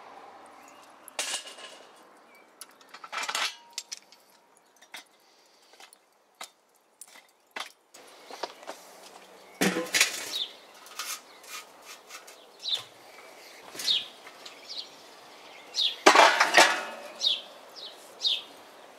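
Metal clinks and clatters from a Weber charcoal kettle grill as its cooking grate and steel lid are handled, set in place and lifted off. The loudest clatters come about ten and sixteen seconds in.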